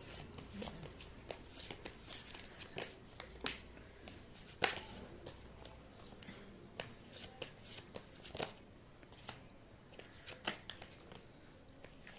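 A tarot deck being shuffled and handled: a run of irregular soft card clicks and slaps, the loudest about four and a half seconds in.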